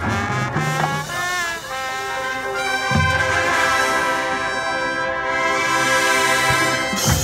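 Marching band's brass section playing, with a pitch bend about a second in and then a loud held chord from about three seconds in, low brass and drums underneath. Percussion hits come in right at the end.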